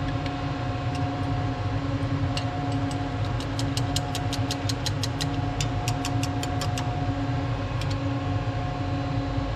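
Steady hum of shop machinery with a couple of constant tones. From about two seconds in until past seven seconds, a run of quick light clicks comes at about four or five a second.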